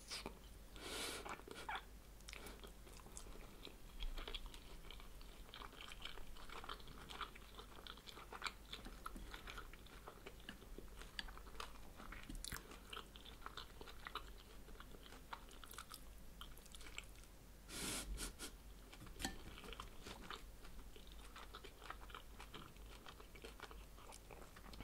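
Close-miked chewing of oven-baked chicken-and-vegetable spring rolls: soft wet smacks and light crunches, no longer very crisp. The chewing is louder for a moment about three-quarters of the way through.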